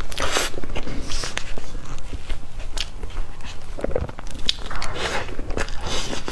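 Close-miked mouth sounds of eating soft cream cake: irregular wet, sticky smacks and clicks as it is chewed, with a spoon scooping into the cake.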